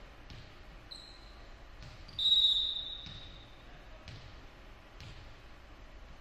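Referee's whistle blown once about two seconds in, a short steady shrill blast that is the loudest sound. It is heard over a volleyball being bounced on the hardwood gym floor about once a second, the server's routine before serving.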